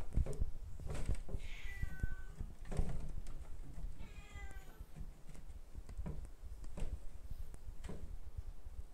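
Domestic cat meowing twice, two short calls a couple of seconds apart, the first falling in pitch, over low rustling and handling noise.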